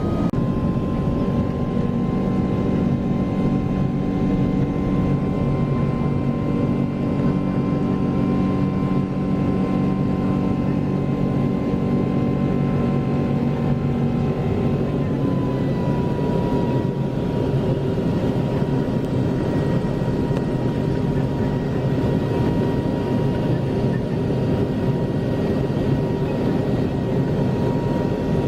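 Boeing 777-300ER's GE90 jet engines heard from inside the cabin: a steady loud rush with several steady whining tones. About halfway through, the highest tone dips slightly in pitch.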